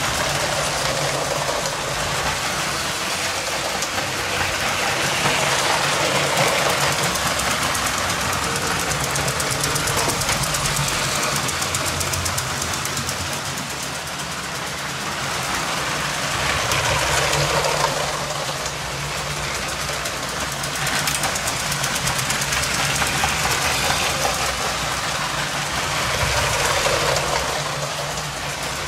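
Lego 12-volt electric goods train running on its plastic track: the locomotive's red 12-volt motor whirring steadily under a rattle of wheels and wagons. It grows louder and fades several times as the train comes near and moves away.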